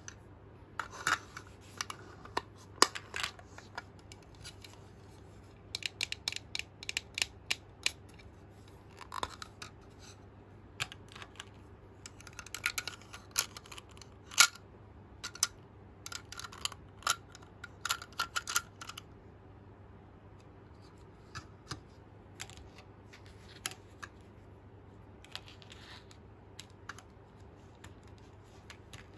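Small plastic toy pieces clicking and clacking: a toy baking tray slid in and out of a little plastic toy oven and handled with plastic tongs. The sharp clicks come in quick clusters for most of the first two-thirds, then thin out to a few scattered taps, over a faint steady hum.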